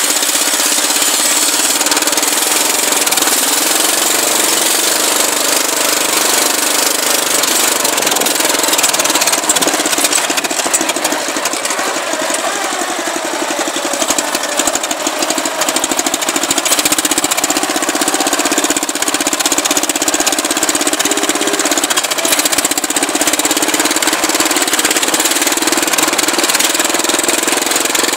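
12.5 Craftsman engine on a Murray riding mower running loud and steady with fast, even firing pulses as the mower drives across grass.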